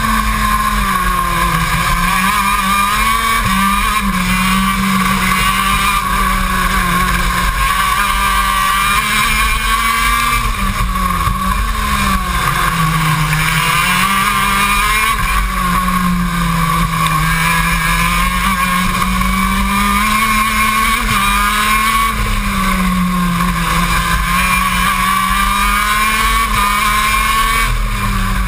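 KZ2 shifter kart's 125cc two-stroke engine at racing speed, heard from on board, its pitch rising and falling again and again as the kart goes through the lap.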